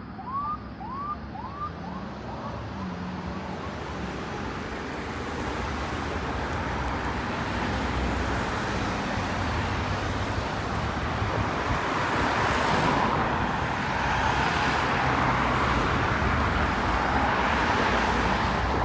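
Ambulance siren over road traffic noise, growing louder toward the end as it approaches. A few quick rising chirps sound in the first second or so.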